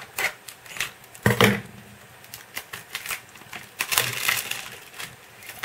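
Scissors snipping through the plastic shrink-wrap on a CD jewel case, a few sharp snips in the first second and a half, then the wrap crackling as it is handled and pulled off about four seconds in.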